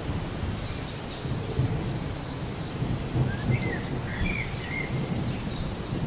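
Steady rain falling on foliage with a low rolling rumble underneath. A bird gives a few short rising chirps in the second half.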